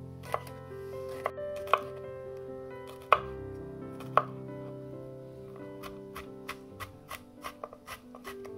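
Chef's knife slicing garlic cloves on a wooden cutting board: a few separate sharp knocks of the blade on the board at first, then quicker, lighter chopping strokes in the second half.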